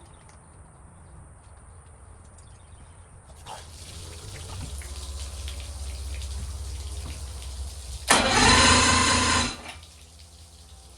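Two-stroke outboard boat motor being cranked over by its starter: a low steady rumble sets in a few seconds in, then a much louder burst lasting about a second and a half that cuts off suddenly.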